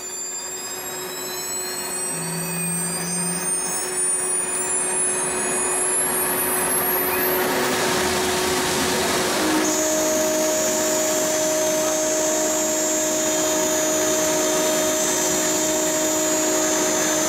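CNC router spindle spinning up with a whine that rises in pitch over the first seven seconds or so. Then comes a brief hissing rush, and from about ten seconds in the end mill cuts the aluminium plate with a steady high whine and cutting noise.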